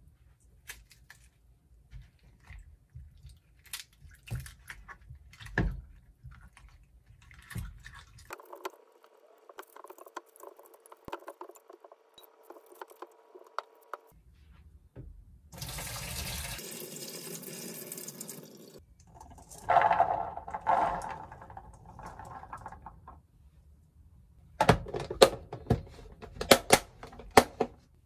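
Water sloshing and splashing in a wooden bowl as a pomegranate is pulled apart under water by hand, with a few seconds of running water in the middle. A run of sharp clicks and knocks comes near the end.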